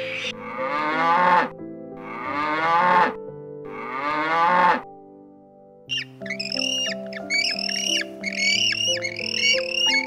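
Background music with three long drawn-out animal calls over the first half, each bending upward in pitch and cutting off sharply. After a short lull, about six seconds in, king penguins start a fast run of short repeated calls.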